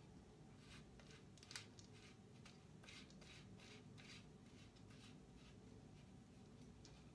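Near silence, with a run of faint scrapes and light clicks from hands working a tripod's centre column, mostly in the first half and sharpest about one and a half seconds in.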